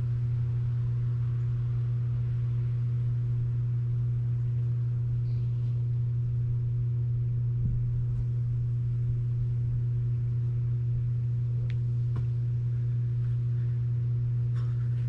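A steady low hum, one unchanging tone that never varies, with a faint thump about halfway through.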